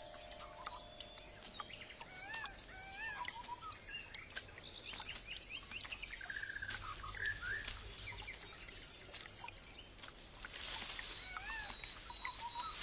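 Forest ambience of small birds chirping and calling, many short rising-and-falling chirps with scattered faint clicks. A steady hiss comes in near the end.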